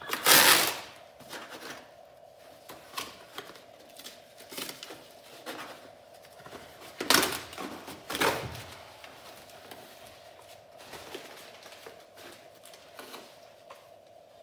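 A cardboard shipping box being opened by hand: small clicks and rustles of cardboard and tape being worked, with a louder burst near the start and two more about seven and eight seconds in. A faint steady hum runs underneath.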